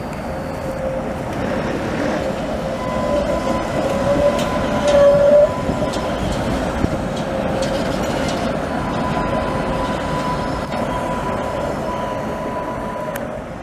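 ČKD Tatra trams running along the rails, with a steady whining tone that wavers and is loudest about five seconds in. A few sharp clicks come from the wheels on the track.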